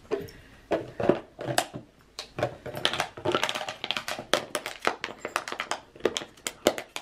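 A miniature schnauzer biting and chewing a thick plastic water bottle: an irregular run of crackles and crunches from the plastic.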